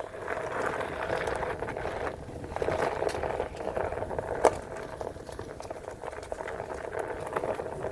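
Onewheel Pint X rolling along a dirt trail: a steady crackle of the tyre over dirt and gravel with a faint steady hum, and one sharp knock about four and a half seconds in.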